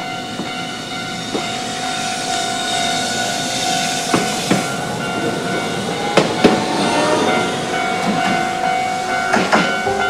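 Hiroshima Electric Railway (Hiroden) tram passing over a level crossing, its wheels clacking over the rail joints in pairs several times. A steady level-crossing warning signal sounds throughout.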